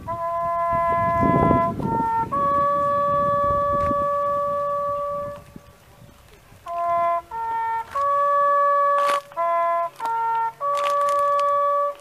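Bugle playing a slow call of long held notes, with a short break a little past halfway. A low rumble runs under the first few seconds.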